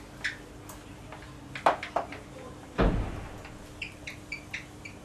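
A few scattered clicks and knocks with one heavier thump a little past the middle, then several short high squeaks near the end.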